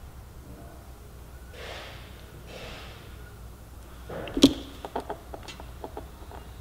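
Handling a crimping tool and butt connector on thin wires: soft rustles, then a sharp click about four and a half seconds in, followed by a run of small quick clicks.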